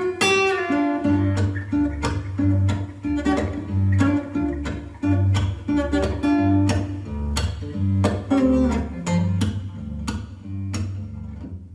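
Music from a portable Bluetooth speaker at half volume: a plucked guitar line over a heavy bass line, with no vocals in this stretch.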